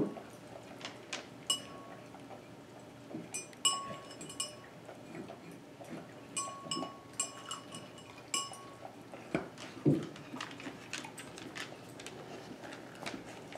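Saint Bernard eating from a metal dog bowl: the bowl clinks and rings in short clusters of bright, same-pitched clinks, with soft clicks of eating in between and a duller knock about ten seconds in.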